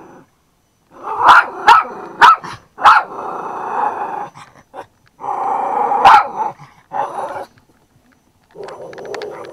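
Parti poodle barking and growling at his own reflection in a fireplace's glass. There are five sharp barks, four close together in the first three seconds and one about six seconds in, with rough growling between and after them.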